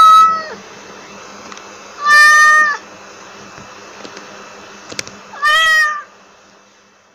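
A domestic cat meowing three times, each meow under a second long and a couple of seconds apart, over a steady background hiss that fades out near the end.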